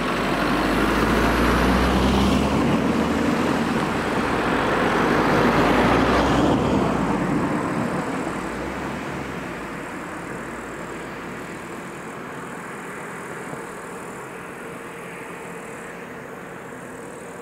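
Two cars driving past over a level crossing, their tyre and engine noise swelling and fading: the first passes about two seconds in, the second about six seconds in, then the sound dies away.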